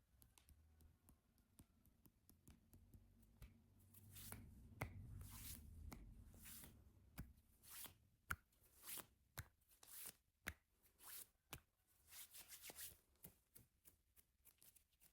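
Faint, irregular rustles and clicks that come thicker in the middle, with a low rumble from about four to six seconds in.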